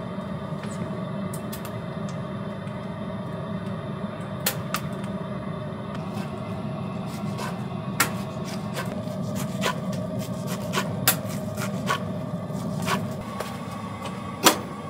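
Kitchen knife cutting blanched spinach on a wooden cutting board: irregular sharp knocks of the blade on the wood, over a steady low hum. Near the end comes one loud metallic clack as the door of a stainless-steel camp oven is opened.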